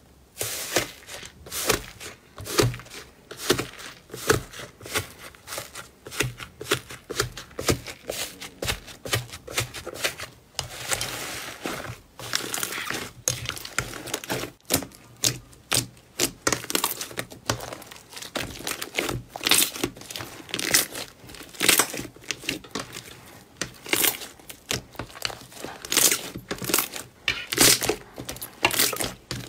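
Thick pink slime being pressed, squeezed and stretched by hand, giving dense irregular crackling and popping with short squelches.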